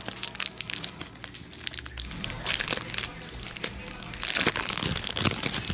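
Wrapper of a 2000 Bowman football card pack crinkling and tearing as it is opened: a run of crisp crackles that gets louder past the middle.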